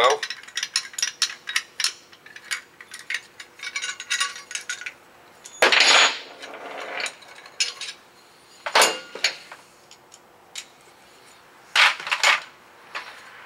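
Metal clicking and clinking of a hand tube-flaring tool being unscrewed and taken off a freshly flared metal tube. Three louder scraping noises follow as the tube is handled.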